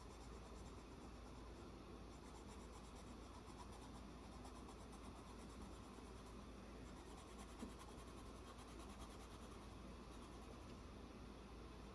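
Faint, steady scratching of a Star-Joy Gold coloured pencil shading on paper.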